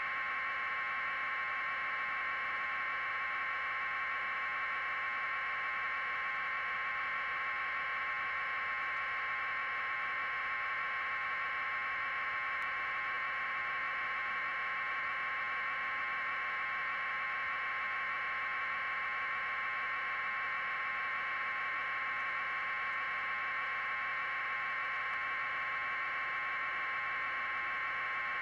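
Steady electronic hiss with a high, even hum in it, unchanging throughout and with no sound from the scene itself.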